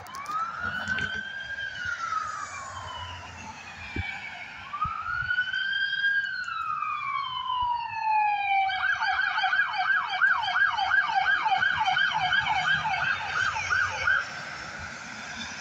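Fire brush truck's siren, loud: two slow wails rising and falling in pitch, then switching about nine seconds in to a fast yelp of about three cycles a second, which cuts off shortly before the end.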